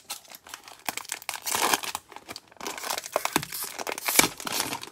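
Cellophane card-pack wrapping crinkling and tearing in irregular bursts as a pack of trading cards is handled, with a sharper crackle about four seconds in.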